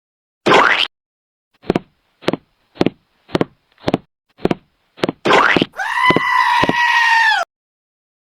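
Dubbed comic sound effects: a quick rising swoop, then a steady run of eight short knocks about two a second, another rising swoop, and a held high-pitched animal-like cry lasting about a second and a half that cuts off suddenly.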